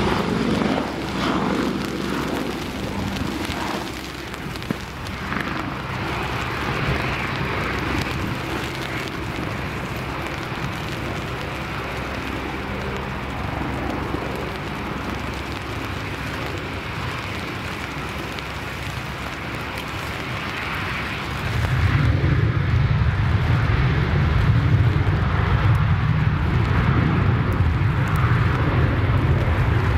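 Strong gusty storm wind buffeting the microphone as a steady rushing noise, turning into a heavier, louder low rumble about two-thirds of the way in.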